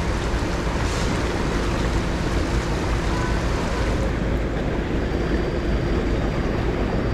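Creek water rushing steadily over rocks in a shallow riffle, with a faint steady hum underneath.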